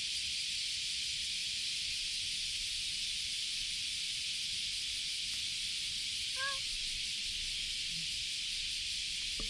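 A steady high hiss with one short meow from a cat about six and a half seconds in.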